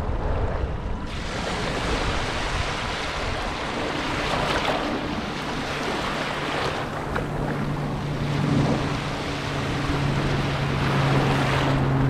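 Surf washing onto a sandy Mediterranean beach in repeated surges, with low wind rumble on the microphone. About halfway through, a steady low engine drone joins and grows stronger.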